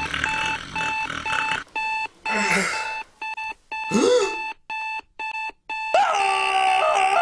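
Alarm clock beeping: a rapid run of short two-tone electronic beeps that stops and starts. A man groans once about four seconds in. From about six seconds a loud drawn-out cry takes over.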